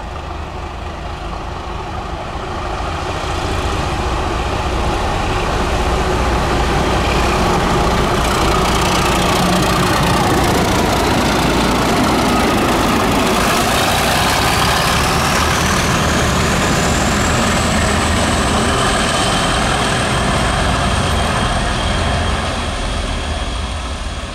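Two British Rail Class 37 diesel locomotives working in multiple, their English Electric V12 engines giving the typical Class 37 "tractor" thrash under load. The engine noise grows over the first few seconds, stays loud as the pair pass, and fades near the end. A high whistling tone rises in pitch about halfway through and then holds steady.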